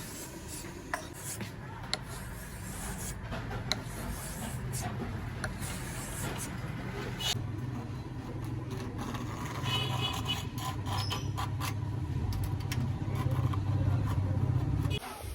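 Scraping and rubbing on a rusty pocket knife's metal, as in sanding or filing off rust, with scattered clicks and a steady low hum underneath; it cuts off sharply near the end.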